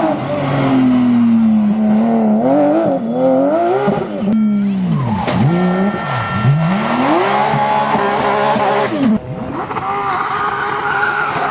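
Porsche GT3 rally car's flat-six engine revving hard, its pitch climbing and falling with gear changes and lifts off the throttle. In the middle the revs drop sharply twice and pick up again, and about nine seconds in the sound changes abruptly.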